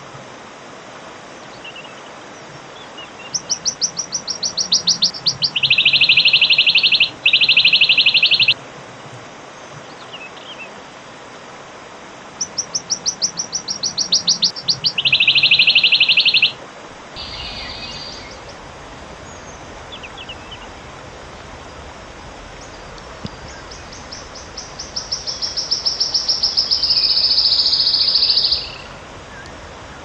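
Wood warbler singing three songs. Each is a run of sharp high ticks that speeds up into a shivering trill, over a steady background hiss.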